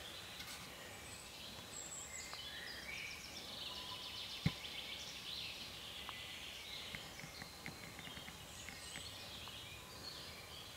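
European badgers, cubs at play, chittering and squeaking in rapid high trills. A single sharp snap about four seconds in is the loudest sound, and a few light ticks follow later.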